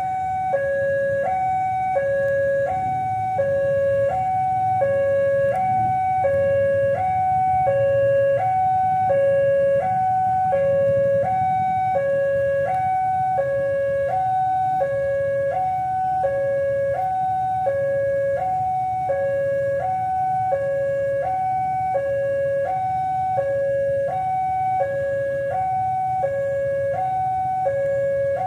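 Electronic two-tone warning alarm sounding steadily, alternating between a lower and a higher note about once a second, over a low rumble.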